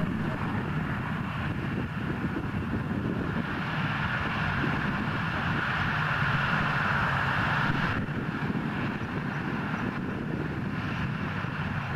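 Douglas DC-6's four Pratt & Whitney R-2800 radial piston engines running at low power, propellers turning, as the airliner taxis. A steady drone; a higher part of it swells in the middle and drops off suddenly about eight seconds in.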